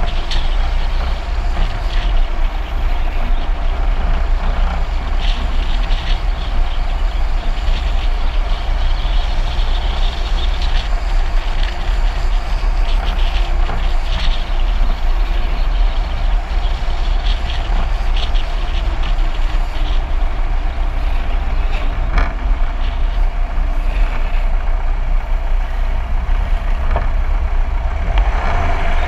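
Steady road and wind noise of a car driving downhill at speed, with a strong low rumble.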